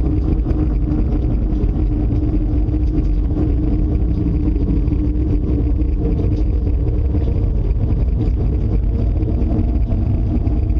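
Loud, steady low rumble with a droning hum running through it, an unexplained noise that the listeners took for an approaching tornado.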